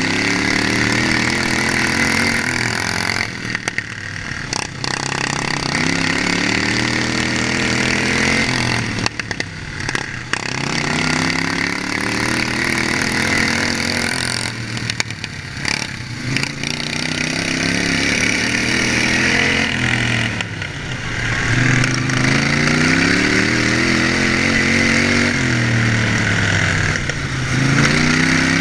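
John Deere outlaw racing lawn mower's engine heard on board during a race, revving up along the straights and dropping off going into each turn, rising and falling about every five to six seconds.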